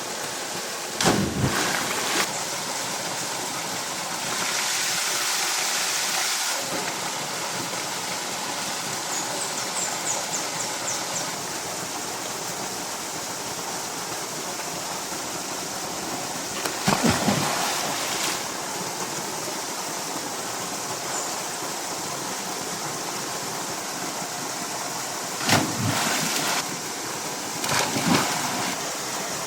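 Flowing water rushing steadily, with a few short knocks about a second in, around the middle and near the end.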